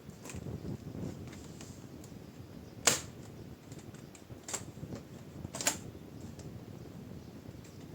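Plastic snap clips of a laptop's bottom cover clicking loose as the cover is pried and lifted off: three sharp clicks, the loudest about three seconds in, with fainter ticks and handling noise between.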